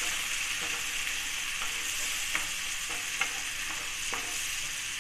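Chopped onions and ground tomato sizzling in oil in a nonstick frying pan while a wooden spatula stirs them, scraping and clicking against the pan about once a second. The masala is being fried down until the oil separates.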